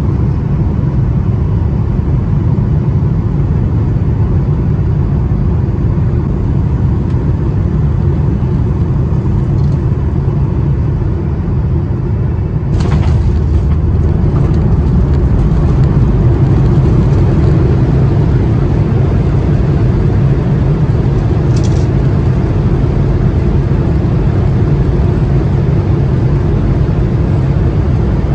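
Boeing 737-800 cabin noise during landing: a steady low rumble of engines and airflow, then a sudden jolt about 13 seconds in as the wheels touch down. After that the rumble is louder as the jet rolls out on the runway, with a brief hiss a few seconds later.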